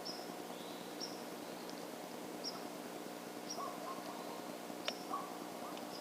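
A bird calling with short, high chirps repeated about once a second, with a few fainter lower notes, over a steady low background hum. A single sharp click comes about five seconds in.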